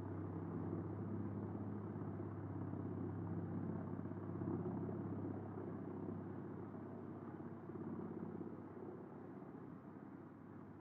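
Truck-mounted Eschlböck Biber 84 drum wood chipper running, a steady low mechanical drone that eases off a little in the second half.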